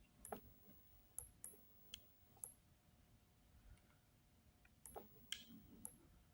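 About eight faint, sharp clicks at irregular intervals, in two clusters, over near silence: small parts being handled.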